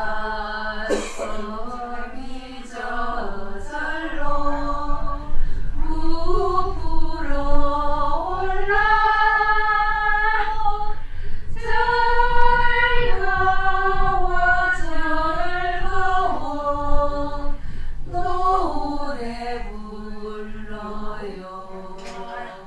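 A small group of women singing a song together without accompaniment, holding long notes.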